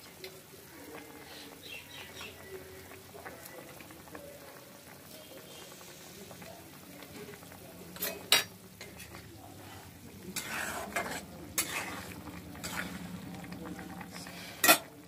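Fish curry bubbling and sizzling in a metal karahi on a gas burner. There are two sharp metal clinks against the pan about eight seconds in and one near the end, with louder spells of stirring and sizzling in between.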